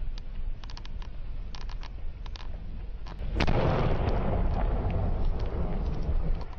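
Scattered sharp gunshot cracks, then a little over three seconds in a loud explosion that rumbles on and slowly fades.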